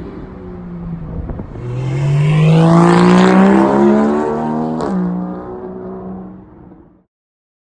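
Straight-piped exhaust of a 2013 Porsche Boxster 981 with the 2.7-litre flat-six, accelerating with its pitch rising steadily, then settling. A single sharp crack comes about five seconds in, and the sound fades and cuts off near the end.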